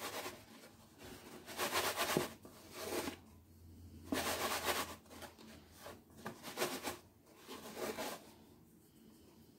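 Hands dredging chicken pieces in flour inside a plastic tub: soft rubbing and scraping of meat and flour against the plastic, in a run of short bursts.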